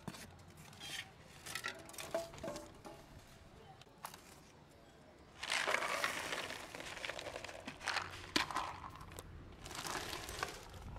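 Dry cat kibble poured from a plastic tub onto a plate: a rattling rush of pellets starting about five seconds in and lasting about two seconds, with a shorter second pour near the end.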